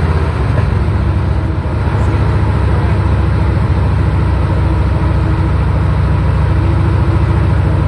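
Continental W670-9A seven-cylinder radial engine of an M3A1 Stuart light tank running steadily and loud with a deep, low rumble, on its first run after installation.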